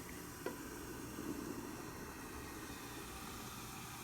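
Vinegar poured into a garbage disposal drain, fizzing with a faint, steady hiss as it foams up in a volcano-style reaction, with a small click about half a second in.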